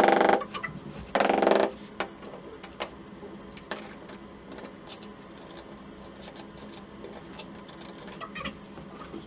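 A cordless power tool runs steadily, stops, and runs again in one short burst, then there are scattered light clicks and rattles of tool handling.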